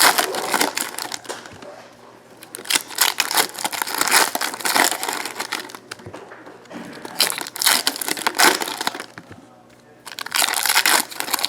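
Trading-card pack wrappers being torn open and crinkled by hand, in four spells of crackling a second or two long with short pauses between.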